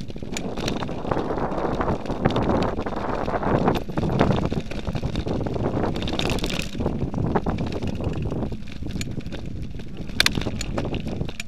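Mountain bike rolling over a dry dirt and gravel trail: tyre crunch with frequent rattling knocks from the bike over bumps, and wind buffeting the microphone.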